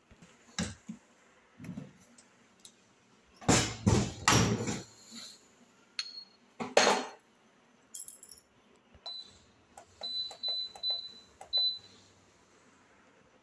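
Midea dishwasher being shut and started: steel vessels in the racks clatter and the door knocks shut about three to five seconds in, with another knock near seven seconds. Then the control panel gives a run of short high beeps as buttons are pressed to select a wash program.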